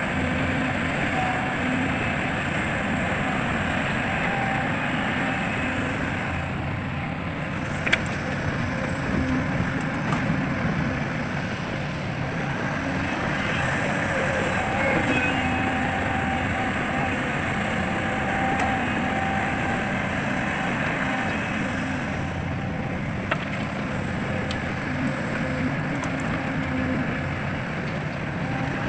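Heavy diesel machinery, an excavator and dump truck, running steadily, with two sharp knocks, one about a quarter of the way in and one near the end.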